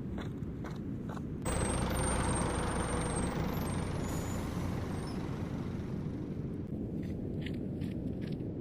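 Footsteps over a steady low rumble of background noise. About a second and a half in, a louder hissing noise swells up and slowly fades, and the footsteps come back near the end.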